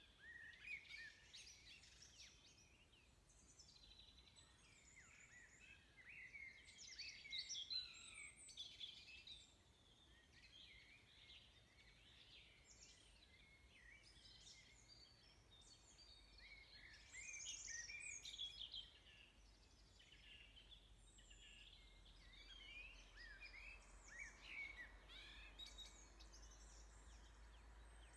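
Faint birdsong: small birds chirping and twittering in quick, overlapping calls, over a faint steady background hum.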